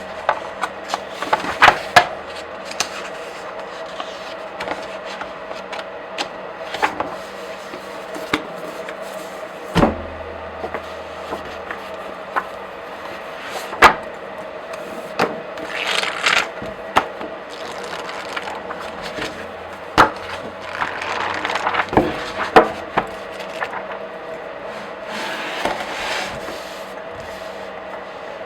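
Pages of a comic book or graphic novel being flipped by hand: irregular sharp paper snaps and flicks as pages turn, with a few longer brushing swishes of paper sliding over paper.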